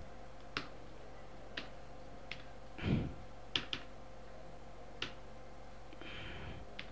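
Scattered single key presses on a computer keyboard, about six sharp clicks spaced unevenly, as characters are deleted and retyped. There is a softer low thump about three seconds in, over a faint steady hum.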